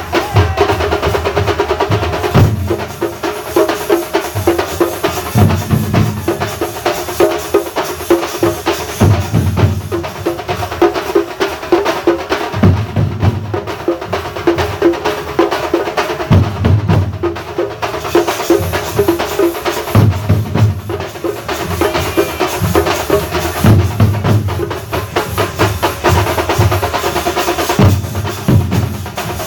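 Thambolam percussion ensemble playing: fast, dense drumming with deep bass-drum strokes landing about every two seconds.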